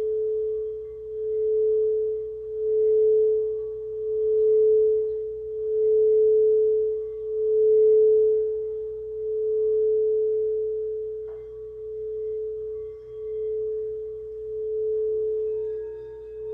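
Quartz crystal singing bowl sustaining one steady pure tone that swells and fades in a slow pulse about every one and a half seconds. There is a brief click about eleven seconds in, and near the end a second bowl comes in with a slightly lower tone.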